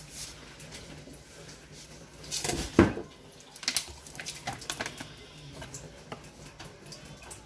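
Raw chicken wings being handled in a stainless steel bowl: scattered knocks and clinks against the metal, with one sharp clank a little under three seconds in.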